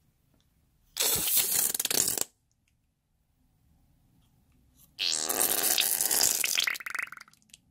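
Rubber novelty balloon being squeezed so its contents spurt out through the narrow neck with a sputtering, fart-like flutter. There are two bursts: a short one about a second in and a longer one from about five seconds in that trails off in a few sputters.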